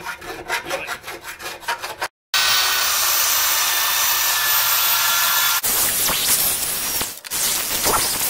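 A rat file rasping back and forth inside the rusty steel rear-axle bushing bore of a Chevy Aveo, in quick even strokes for about two seconds. After a brief break, a power drill spins a wire wheel in the bore with a steady whir and scouring, cleaning the metal for the new bushing.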